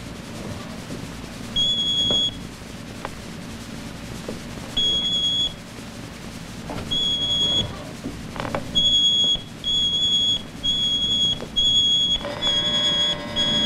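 Minuteman launch control console sounding a high electronic alert beep, each beep about two-thirds of a second long. The beeps come a few seconds apart at first and then about once a second, with a few clicks in between. Near the end a lower buzzing tone joins the beeps.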